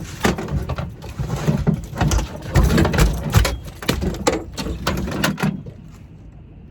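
Irregular knocking and clattering with heavy low thumps, cutting off suddenly about five and a half seconds in to a faint steady hiss.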